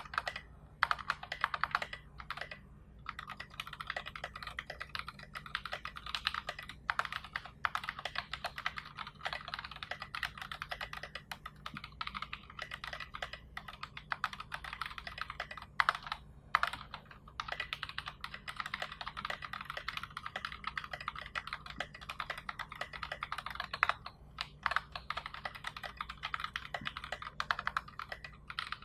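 Fast continuous typing on a custom mechanical keyboard with tactile NovelKeys Box Royal switches, a 3 mm acrylic plate and SA-profile keycaps: dense runs of key clacks broken by a few brief pauses.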